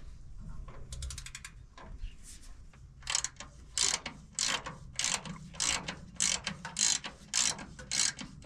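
Repeated sharp metallic clicks, about two a second, starting about three seconds in, over a faint low hum.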